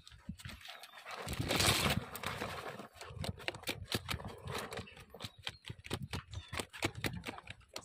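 Woven bamboo crab trap being handled and shaken over a cloth bag to empty it: a burst of rustling about a second and a half in, then a run of many sharp clicks and knocks.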